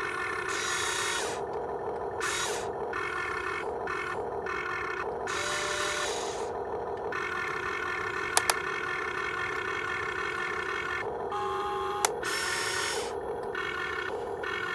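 Electric motors and plastic gearboxes of a Huina 1592 RC excavator whirring, with the pitch and loudness changing abruptly every second or so as different functions start and stop, and a few sharp clicks.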